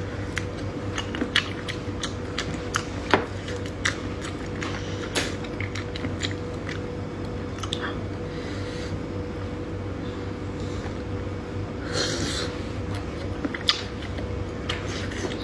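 Spotted babylon sea snails being sucked out of their shells and chewed, with scattered sharp clicks of the shells against fingers and teeth. A steady low hum runs underneath.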